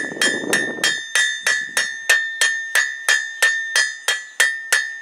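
Hand hammer striking a hot iron rod on an anvil in a steady rhythm of about three blows a second, each blow leaving the anvil ringing. The smith is forging the rod's end from square to round.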